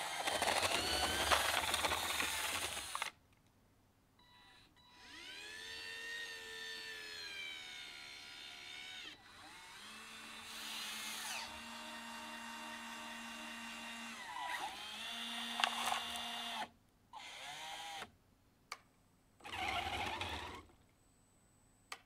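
Small 12 V DC gear motors driving the lead-screw actuators of a 3D-printed RC excavator, whining as the boom, arm and bucket move, the pitch rising and falling as the motors speed up and slow down. For the first few seconds there is a louder scraping and crunching as the bucket digs into the gravel, and short bursts of motor noise come near the end.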